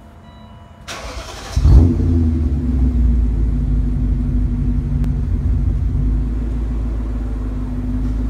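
BMW E39 M5's S62 V8 engine starting: after a short burst of noise it catches about one and a half seconds in, flares briefly, then settles into a steady idle.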